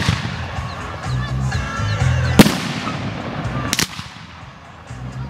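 Aerial firework shells bursting with sharp bangs: one right at the start, the loudest about two and a half seconds in, and a quick double crack near four seconds. Music plays underneath.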